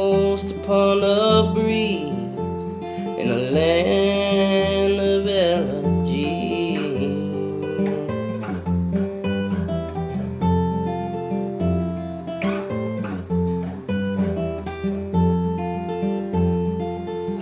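Acoustic guitar strummed and picked as song accompaniment. A sung line trails off over it during the first several seconds, and the guitar then carries on alone as an instrumental break.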